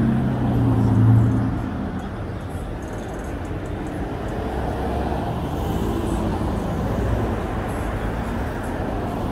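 Street traffic: a nearby motor vehicle's engine hums steadily and fades out about two seconds in, leaving a steady wash of road traffic noise.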